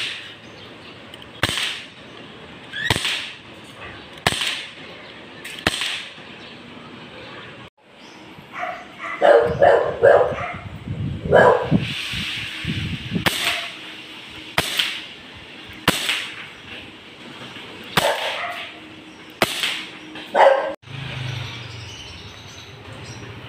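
KJW Mk1 green-gas, non-blowback airsoft pistol firing single shots, a sharp pop about every one and a half seconds, around a dozen in all. A dog barks several times in the middle, louder than the shots.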